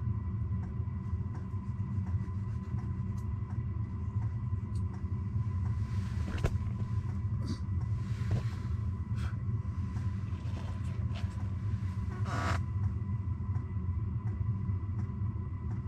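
Steady low rumble with a faint high steady whine and soft, regular ticking. Two brief louder noises come through, about six and a half and twelve and a half seconds in.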